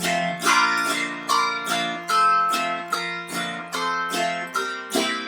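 Autoharp played alone in an instrumental break of a blues song: plucked chords with a sharp attack that ring and fade, in a steady rhythm of about two and a half a second.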